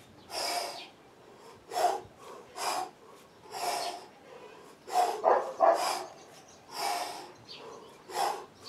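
A man breathing hard through a kettlebell set: sharp, forceful exhalations, about one a second, each timed to a rep, with a quick run of several breaths about five seconds in.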